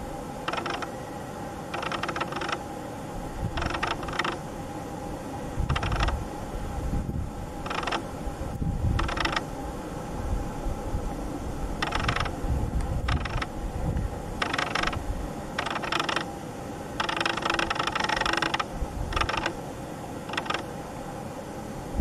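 A small mechanism whirring in about a dozen short, irregular bursts, one of them longer, over a steady low hum.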